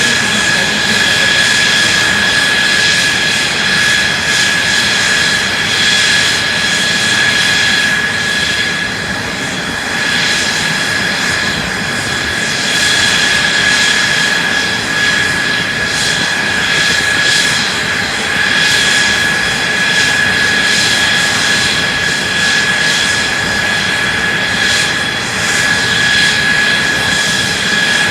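Mitsubishi F-2 fighter's single F110 turbofan running steadily on the ground, a loud rush of jet noise with a high whine held on one pitch.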